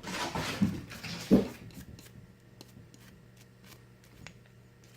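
Brief rustling and scraping with two knocks in the first second and a half as Glock 19 pistol parts are handled, then only faint small ticks.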